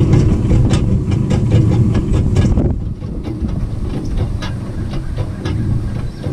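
Farm tractor engine running under load while pulling a brush hog rotary mower, with frequent rattling clicks over a steady low rumble. A little under three seconds in it drops quieter and the clicks thin out.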